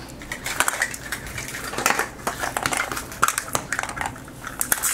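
Crinkling of a plastic wrapper being peeled off a Mini Brands capsule ball, mixed with many sharp clicks of hard plastic being handled.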